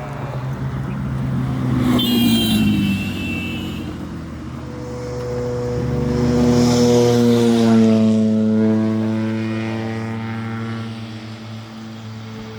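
Vehicle engines passing close by over a steady low engine hum. One swells and fades about two seconds in. A longer one rises and fades through the middle, its engine note slowly falling in pitch as it goes past.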